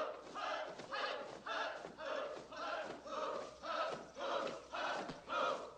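A large group of voices shouting together in a steady unison beat, about two shouts a second: a martial arts class's drill chant.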